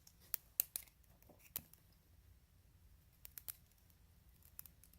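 Faint, scattered small metal clicks and taps: tweezers and fingers handling the tiny pins and springs of a pin-tumbler lock as it is taken apart. There are several clicks in the first second and a half, a pair a little after three seconds and another pair near the end.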